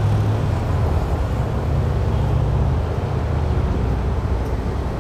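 City street traffic: a steady low engine rumble from vehicles on the road, under a general hum of traffic noise.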